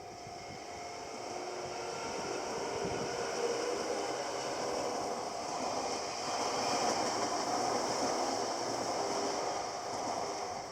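A train passing over a level crossing: its running noise swells, stays loudest through the middle and fades near the end. The crossing's warning bell keeps ringing underneath.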